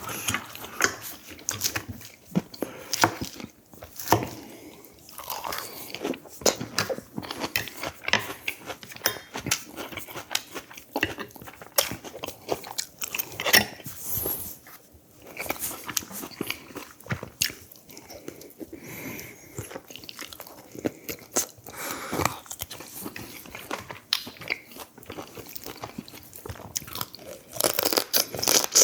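A person chewing and biting food up close, with many small irregular crunches and mouth clicks.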